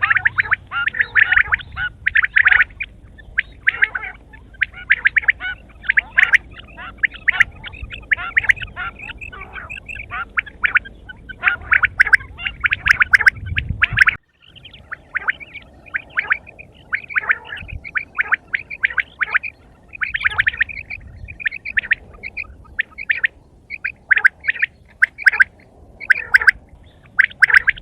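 Quail calling continuously, a dense run of quick chirping notes several to the second with short gaps between phrases. The sound cuts out completely for a moment about fourteen seconds in.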